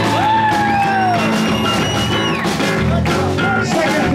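Rock and roll band playing live on electric guitar, bass guitar and drum kit, with long sliding yelled notes over the music.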